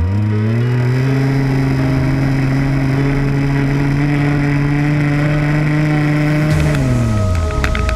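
25cc two-stroke petrol engine of a ROVAN Baja RC buggy, heard close up from on board, revving up sharply right at the start and held at a steady high pitch for about six seconds, then dropping back toward idle near the end.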